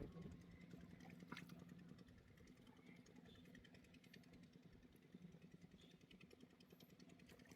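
Near silence, with a faint steady low hum under it.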